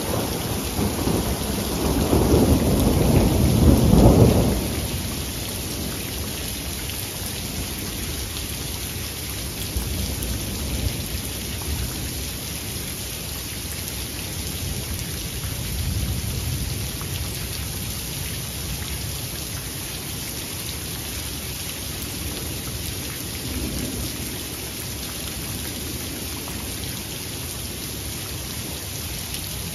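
Thunderstorm: steady rain falling throughout, with a long rumble of thunder that is loudest over the first four seconds or so and then dies away. Fainter thunder rumbles swell up a few more times later.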